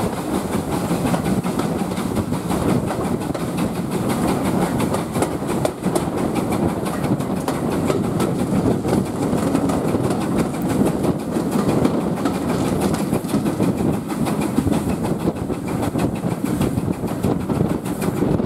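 Railway carriage running along the track, heard from an open carriage window: a steady rumble and rattle of the wheels on the rails, with frequent small clicks.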